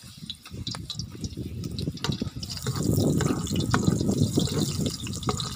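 Garlic sizzling in hot oil in a large metal wok, with scattered crackles and pops; partway through, chopped onions go in and the sizzling grows louder.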